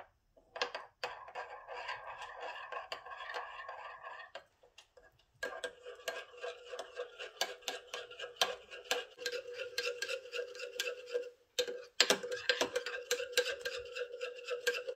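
A metal teaspoon stirring gelatine powder into hot water in a small glass bowl, dissolving it: rapid clinks of the spoon against the glass, each leaving a ringing tone, with a short pause about four seconds in.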